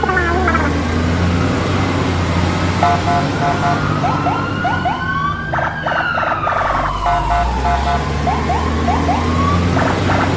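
A siren-like wail whose pitch rises slowly for about three seconds, then falls for about three more. Under it runs a steady low engine-like drone, with short rising chirps and beeps.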